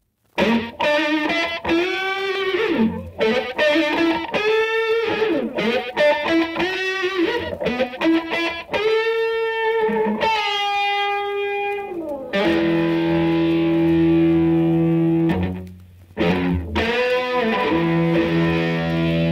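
Distorted electric blues-rock guitar plays a solo intro of bent notes from a vinyl LP. About twelve seconds in, held chords with a deep bass come in, break off for a moment and return.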